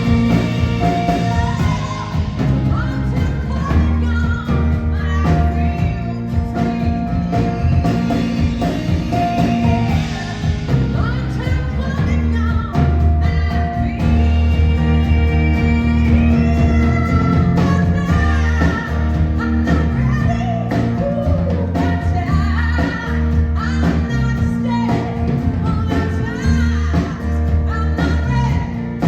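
Live rock band playing, with guitar, a steady bass line and a lead vocal singing held, wavering notes.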